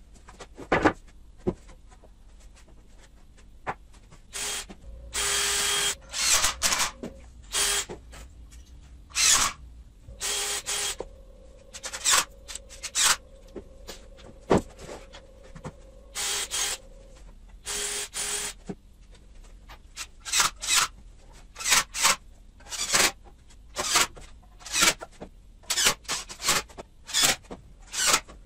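Cordless drill driving screws into pine, in bursts of motor whine: a few longer runs, then many short quick ones near the end, with occasional knocks of the wooden frame.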